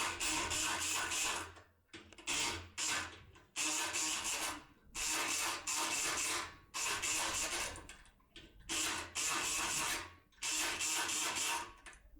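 Multipick Kronos electric pick gun running in about eight short bursts of a second or so each, its vibrating needle rattling the pins of a lock cylinder while the cylinder is worked at different angles and not yet opening.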